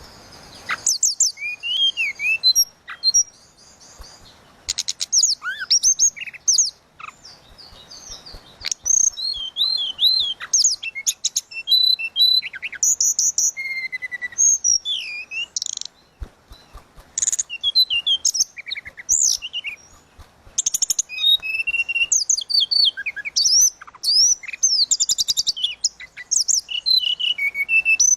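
A tledekan laut songbird singing a fast, varied song of high, flute-like whistles, quick rising and falling notes and chirps, with only brief pauses.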